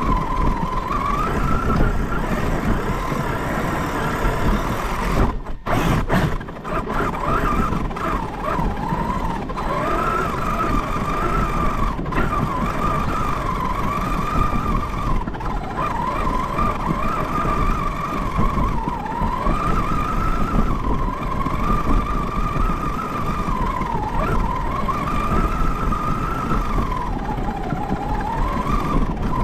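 Large RC car's motor whining, its pitch rising and falling as the throttle changes, over the noise of the tyres churning through snow. The sound briefly drops out about six seconds in.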